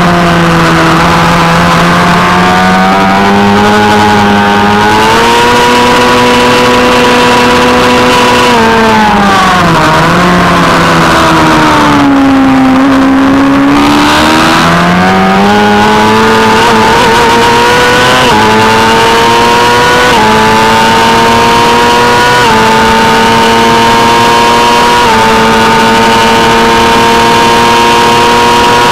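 A 600 cc superstock race motorcycle's engine, heard onboard with wind noise on the microphone. It runs flat out on a straight, then drops in pitch with downshifts under braking about nine seconds in and pulls low through the corner. From about fourteen seconds in it accelerates hard again, rising with four quick upshifts.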